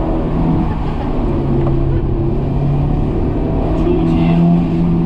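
Honda S2000's four-cylinder engine heard from inside the cabin, its note stepping up and down with the throttle and climbing near the end.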